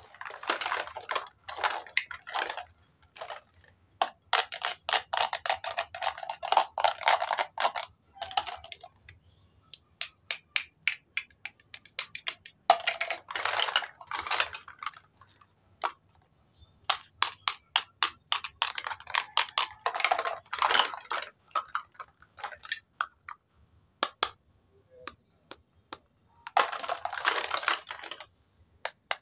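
Plastic toy fruits and vegetables being cut apart with a toy knife: crackly tearing of the hook-and-loop strips that hold the halves together, in stretches of a second or two, between many sharp clacks of hard plastic pieces being tapped together and dropped into a plastic basket.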